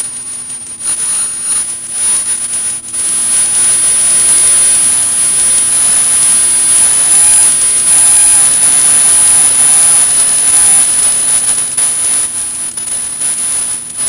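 Experimental HHO gas heater's burner nozzle and electronic spark igniter giving a steady hiss with a thin high-pitched whine: the high-pitched noise this heater makes before it lights. The hiss grows louder about three seconds in and eases off near the end; no flame catches, which the uploader puts down to a leak in the tank cap letting too little gas reach the nozzle.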